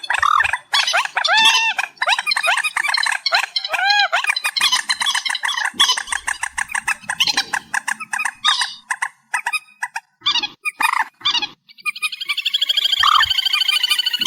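Amplified recording of trích ré (a wetland rail-family bird) calling: loud, rapidly repeated squawking notes that rise and fall in pitch and overlap densely, breaking into a fast trilling rattle in the last couple of seconds.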